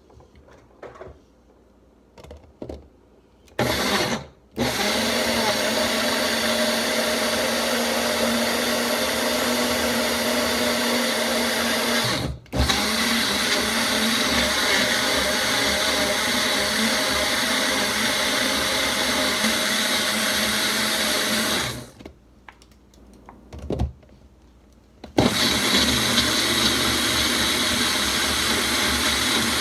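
Baby Bullet blender motor pureeing kale, banana and strawberries in apple juice, switched on by pressing the cup down onto the base. A few light clicks as the cup is seated and a short burst come first. Then the motor runs steadily for about seventeen seconds with a brief stop near the middle, halts for a few seconds, and starts again.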